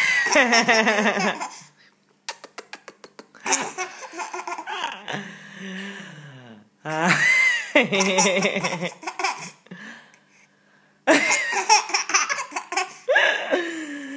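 An 8½-month-old baby laughing hard in about four bouts with short breaks between, each a run of bubbly, pitched giggles. A quick run of about ten even clicks comes between the first and second bouts.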